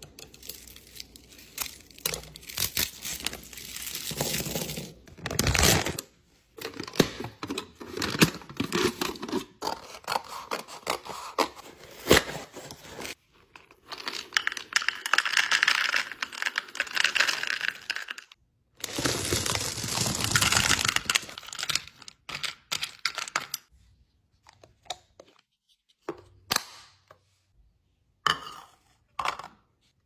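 ASMR-style snack restocking: plastic packaging crinkling and tearing, and peanuts pouring and rattling into a small clear plastic container, with sharp clicks and knocks of the containers. The sounds come in separate stretches that cut off suddenly.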